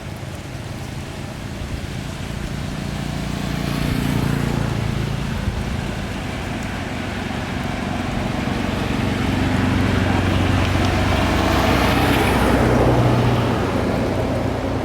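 Motor engine running, with steady low hum and a wash of noise that swells twice, about four seconds in and again near the end, as vehicles pass close by.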